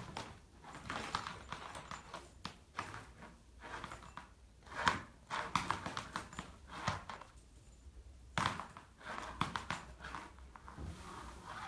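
A series of irregular light taps and knocks.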